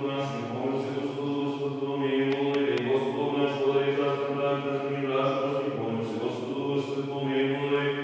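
Orthodox liturgical chanting: a voice singing long held notes that shift in pitch every second or two, over a steady low tone.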